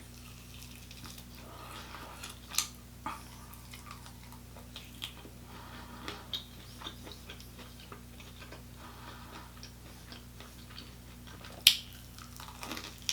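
Close-miked chewing and biting of chicken wings, with scattered small wet clicks and smacks and one sharper click near the end. A steady low electrical hum runs underneath.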